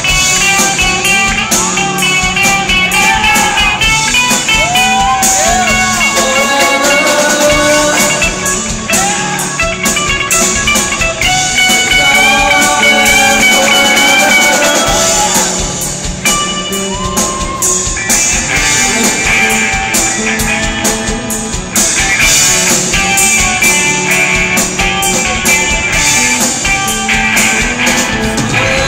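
A rock band playing live: electric guitars and a drum kit, with a bending melodic lead line from the frontman at the microphone riding on top. It is loud and continuous, recorded on a phone.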